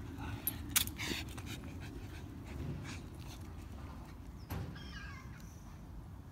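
A dog gives a short, high, falling whine about four and a half seconds in, after a few sharp clicks about a second in, over a steady low outdoor rumble.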